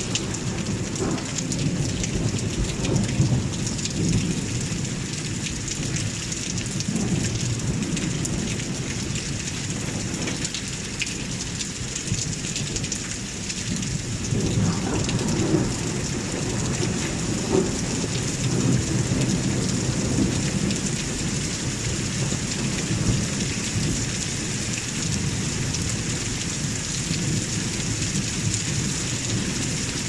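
Steady rain hiss, with thunder rumbling low beneath it, swelling and fading and strongest in the middle.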